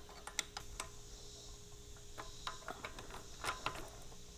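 Faint, irregular metal clicks of a ratchet wrench being worked on the front sprocket retainer bolts of a Honda Grom, with a wrench wedged in to hold the sprocket still.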